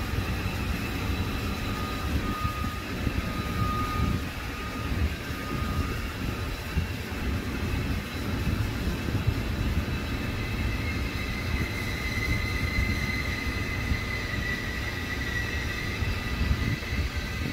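Electric train noise: a steady low rumble with faint whining tones above it, one tone growing louder and wavering in pitch in the second half.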